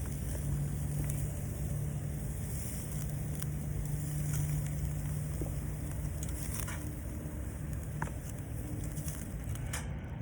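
Light, scattered crackles from a wood campfire over a steady low hum, like a distant engine.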